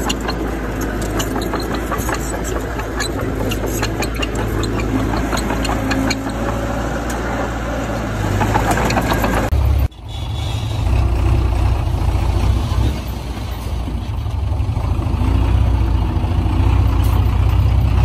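A heavy earthmoving machine's diesel engine running with a deep rumble and clattering over it for the first half. The sound breaks off sharply about ten seconds in, then the engine carries on, smoother and with less clatter.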